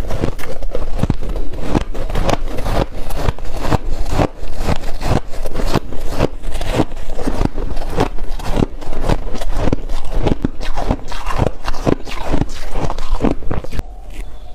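Close-up chewing of a mouthful of shaved ice: a run of crisp crunches and crackles, about three a second, getting quieter near the end.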